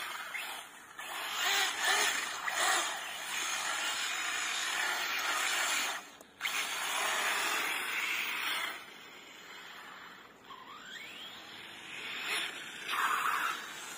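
Arrma Kraton 6S electric RC truck running on paving stones: brushless motor and drivetrain whine with tyre hiss, surging and easing off with the throttle, and a short rising whine about ten seconds in.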